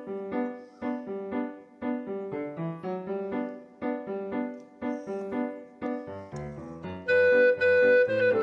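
Background music: a light, bouncy keyboard tune of short separate notes. About seven seconds in it gets louder and fuller, with a bass line and longer held notes.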